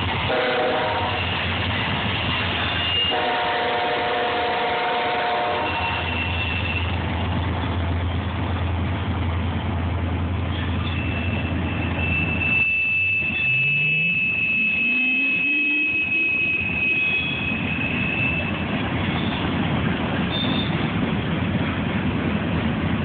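CSX freight train passing close by: diesel locomotive rumble in the first half, then the steady rolling noise of hopper cars, tank cars and boxcars on the rails. A thin high squeal runs for several seconds midway, typical of wheel flanges rubbing the rail.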